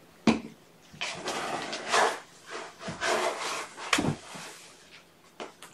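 A sharp knock, then about three seconds of rustling and scraping, with another knock about four seconds in.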